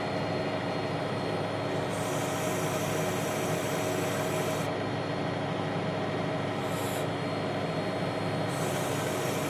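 Tractor engine running steadily, driving the PTO-powered backhoe's hydraulic pump: an even mechanical noise with a few fixed humming tones. A higher hiss rises over it about two seconds in, drops out near the five-second mark, and returns near the end.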